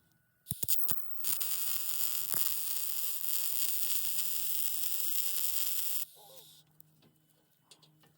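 A few sharp clicks, then a Harbor Freight Titanium MIG welder's arc crackling steadily for about five seconds as a bead is laid, cutting off suddenly. A faint steady hum remains after the arc stops.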